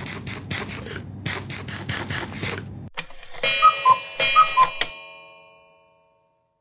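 Steady airplane-cabin hum with quick rhythmic taps, cut off about three seconds in by a cartoon time-skip sound effect. The effect has clock clicks and a high-low two-note chime sounded twice, which rings on and fades away.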